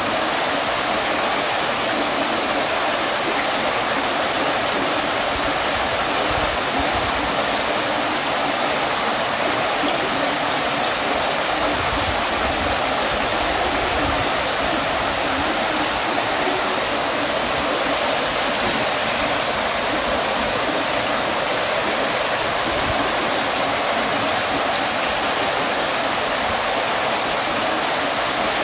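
Water fountain running: a steady, even rush of falling, splashing water, with one short click about two-thirds of the way through.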